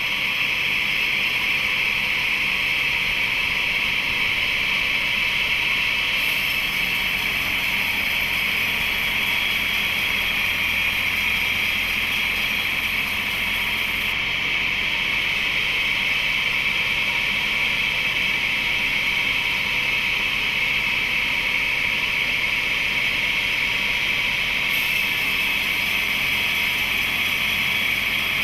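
Woodworking machinery running steadily while large timber is split, an even high hiss over a faint low hum.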